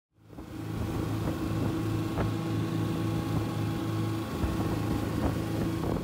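An engine running at a steady speed, fading in just after the start.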